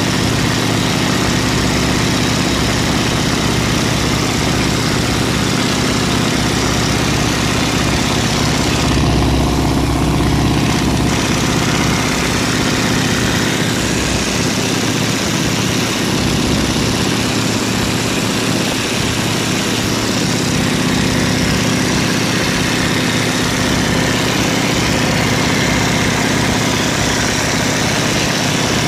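Boeing Stearman biplane's radial engine and propeller running steadily at takeoff and climb power, heard from the open cockpit with loud wind rush over the microphone.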